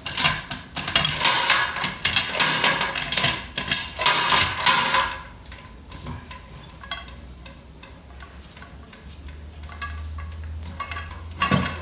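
Metal clattering and scraping as the clamps and lid of a portable stainless-steel steam autoclave are undone and the lid is lifted off. The clatter is dense for about the first five seconds, then gives way to light handling over a low hum.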